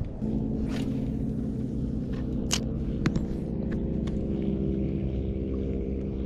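Boat engine running steadily at a constant pitch, with a few sharp clicks and knocks in the first three seconds.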